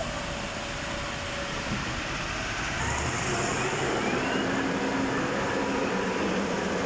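Heavy diesel machinery running steadily. It gets louder about three seconds in, with a steady engine hum and faint rising whines.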